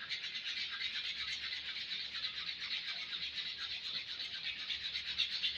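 Sandpaper rubbed by hand over a wooden hatchet handle in quick back-and-forth strokes, a steady rasping that takes the old paint off the wood. It stops abruptly at the very end.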